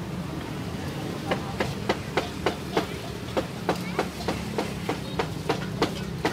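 Meat cleaver chopping roast pork on a round wooden chopping block: a steady run of sharp chops, about three a second, starting a little over a second in.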